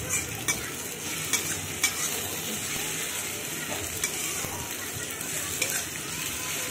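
Onions, tomatoes and green chillies sizzling in oil in a metal kadai as a metal spatula stirs and turns them, with a few sharp clinks of the spatula against the pan.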